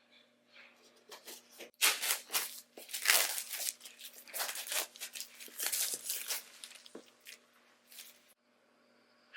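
Packaging of an Apple HomePod mini box being torn open and crinkled: a run of irregular tearing rasps that stops about a second before the end.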